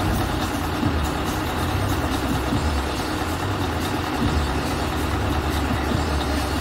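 Scania R 6x4 tipper truck's diesel engine idling steadily while the tipper body is lowered on its hydraulic ram.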